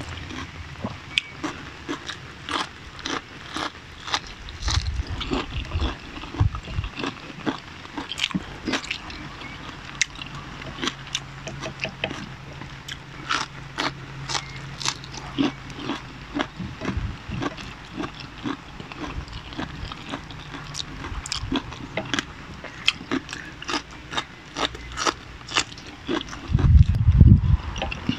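Close crunching and chewing of raw bitter melon (ampalaya), with many sharp, crisp crunches heard right at a clip-on lapel mic.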